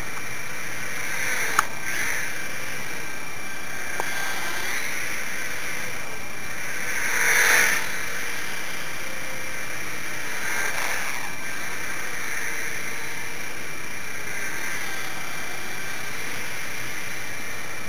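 Micro twin-motor RC foam plane in flight: its two tiny electric motors and propellers give a steady high-pitched whine, swelling as it passes close, loudest about seven seconds in. Two sharp clicks, near the start and about four seconds in.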